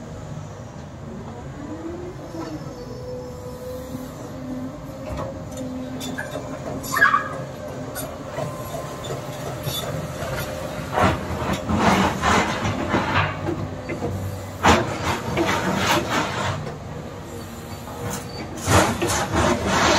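Tracked CAT excavator running, a steady whine over the engine as the boom and tiltrotator bucket move. Sharp metallic clanks about seven seconds in and again near fifteen seconds, with spells of loud clattering and rattling from about ten seconds in and again near the end.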